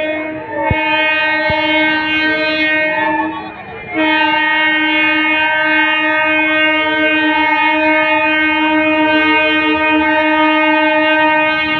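Diesel locomotive horn sounding a long, steady blast that breaks off briefly about three and a half seconds in, then sounds again and holds on.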